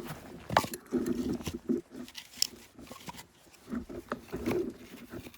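A man grunting with effort in short bursts, twice, with a few sharp cracks or knocks from the work between them.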